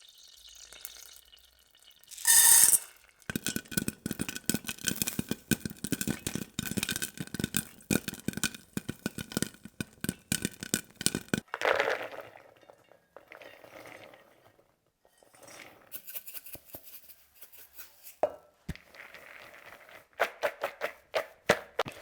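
Kitchen clatter of dishes and cookware: a loud clatter about two seconds in, then several seconds of dense, rapid clicking and clinking with a slight ringing, and scattered clinks and taps after that.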